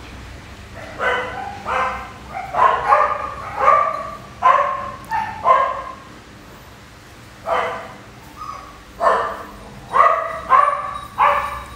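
A border collie puppy barking repeatedly in short, high-pitched barks. The barks come in quick runs, with a pause of about two seconds in the middle.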